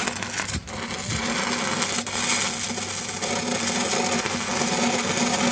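Electric arc welding a tack on the joint between a weld-neck flange and a steel pipe. The arc strikes with a sharp crack, then crackles and sizzles steadily over a steady hum.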